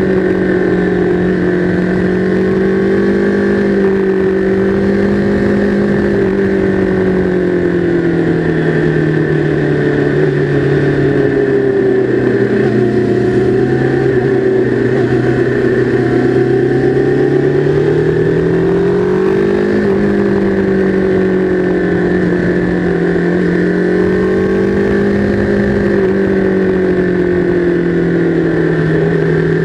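Sport motorcycle engine heard from on board at track speed, its pitch rising and falling with the throttle. The revs sink gradually from about ten seconds in, stay low through a corner, then climb back about twenty seconds in and dip again near the end.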